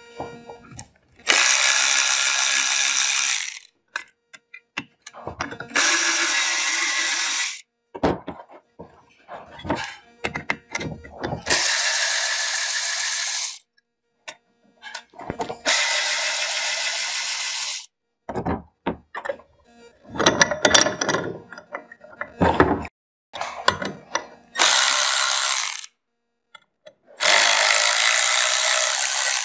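Cordless electric ratchet with a T25 Torx bit running in six bursts of about two seconds each as it backs out the clutch helix bolts. Between runs there are light metallic clicks and knocks.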